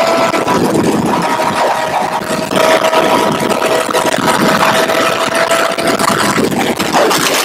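Inline-four sport motorcycle engines running at a steady cruising speed, with a steady engine whine, under wind rush on a helmet-mounted microphone. The whine drops out briefly in the first second and fades after about six seconds.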